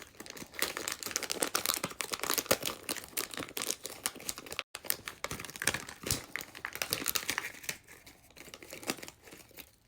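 Crinkly blind-bag packaging crumpling and tearing as it is worked open one-handed, a dense run of crackles that thins out near the end.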